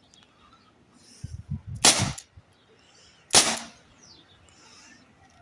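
Dan Wesson .357 Magnum replica CO2 pellet revolver firing two sharp shots about a second and a half apart at a steel baking tray, with a few light mechanical clicks just before the first shot.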